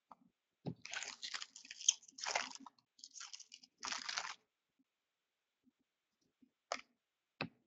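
Hockey card pack wrappers being torn open and crinkled in several short bursts, followed by two sharp clicks near the end.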